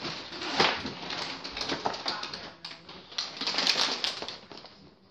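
Boxes and packages being moved around on pantry shelves: rustling with many small clicks and knocks, dying away near the end.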